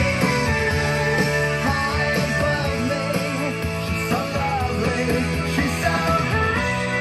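Rock music played back through a pair of KLH Model 403A indoor/outdoor speakers, with their 4-inch polypropylene mid-woofers and piezo tweeters, at a loud, steady level.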